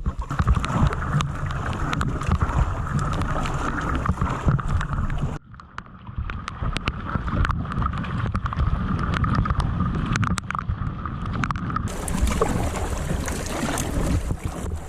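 Kayaks on moving river water: rushing water and splashes, with wind buffeting the microphone. The sound changes abruptly twice, about five and twelve seconds in, as at a cut between clips.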